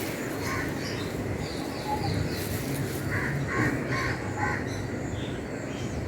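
Crows cawing, with a quick run of about four caws a little past the middle, over a steady scratchy hiss of a broom sweeping the ground.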